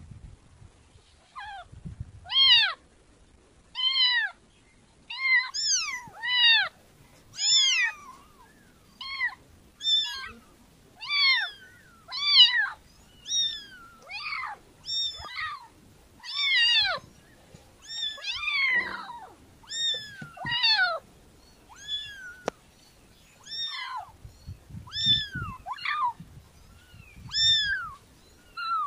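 Kitten meowing over and over: short, high-pitched mews about one a second, each rising and then falling in pitch.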